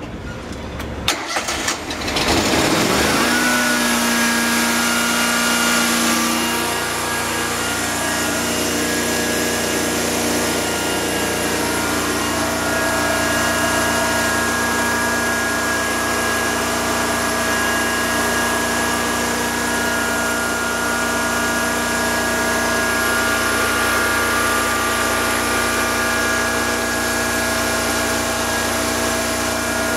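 Slayer truckmount carpet-cleaning machine's engine cranking, catching about two seconds in, rising in pitch and settling into a steady run.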